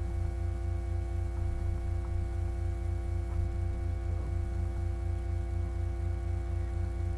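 Steady electrical mains hum and buzz in the microphone signal: a loud low hum with a fast, even throb, and a row of steady higher tones above it. The uploader puts it down to a poor microphone condition.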